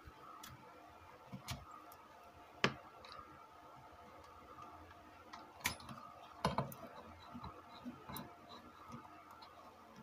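Faint, scattered small clicks and taps of a screwdriver and fingers working the subwoofer wire's terminal on a home theatre amplifier board. The sharpest click comes about two and a half seconds in, and a few more come around six seconds.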